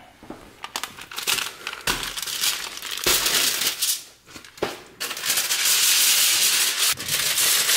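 Aluminum foil crinkling and rustling as a sheet is handled, with scattered rustles and clicks at first and a steady, louder crackle from about five seconds in.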